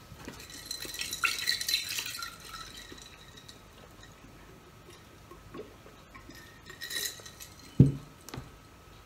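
A large glass beer stein of cola is handled with light glass clinks and ringing, then set down on the table with a single loud thump near the end.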